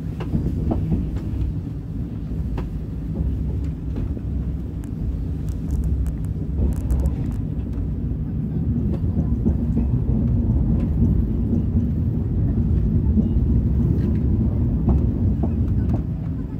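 KTX high-speed train running, heard from inside the cabin: a steady low rumble with a few faint clicks.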